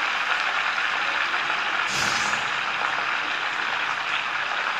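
Oil sizzling steadily around a whole chicken frying in a non-stick pan, with a brief clatter about two seconds in.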